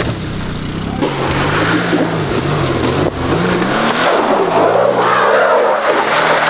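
Lifted Subaru Forester's flat-four boxer engine revving up and down under load as the car climbs a steep dirt slope, with a front wheel spinning in the loose soil.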